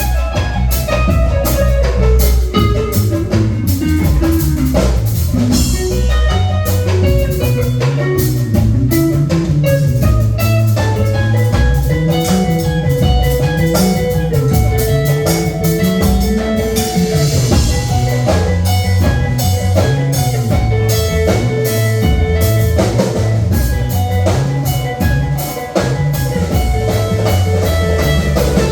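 Live band playing an instrumental jam: a guitar lead with long held notes over a walking bass line and a drum kit keeping a steady beat.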